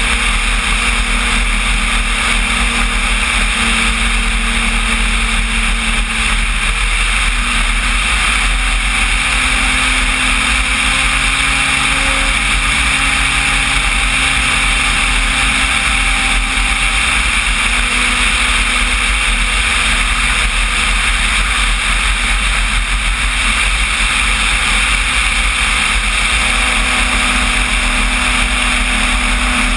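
Electric motor and propeller of a large RC Cessna 185 floatplane running steadily in flight, with air rushing past the wing-mounted camera. The drone shifts slightly in pitch a few times as the throttle changes.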